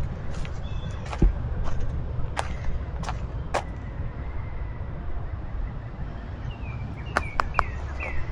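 Footsteps on a leaf-littered dirt trail, a string of irregular crunches and snaps, over a steady low rumble. A few short falling bird chirps come near the end.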